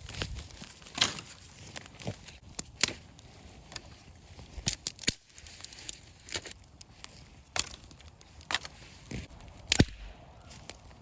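Dry brush and twigs snapping and crackling in irregular sharp cracks, about one or two a second, with a faint rustle between them.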